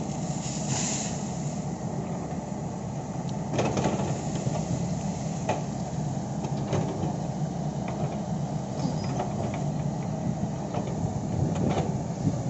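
Kobelco hydraulic excavator running steadily under work, with a few sharp metallic knocks scattered through.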